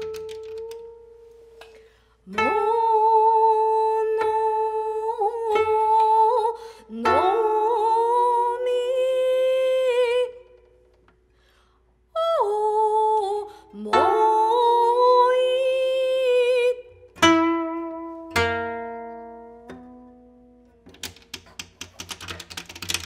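A woman's voice singing long held notes, each scooped up into pitch, in two phrases with a pause between them, over sparse plucked koto notes. Later, single koto notes ring out and die away, then a quick flurry of plucked strokes on the koto strings near the end.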